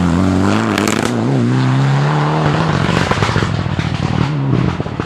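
Mitsubishi Lancer Evolution X rally car's engine pulling hard away through a bend, its note climbing and wavering with throttle and gear changes. There is a burst of sharp crackling in the first second.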